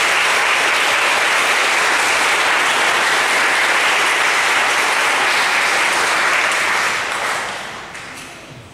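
Audience applauding steadily, the clapping dying away over the last second or two.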